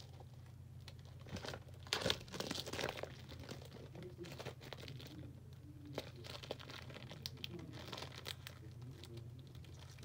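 Packaging on a Blu-ray case being torn and crinkled open by hand, in irregular crackling bursts that are loudest about two seconds in, over a steady low hum.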